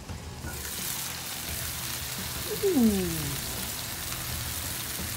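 Chicken pieces sizzling and bubbling in a stainless steel pan as the lid comes off, a steady hiss. About two and a half seconds in, a short falling "ooh" from a voice.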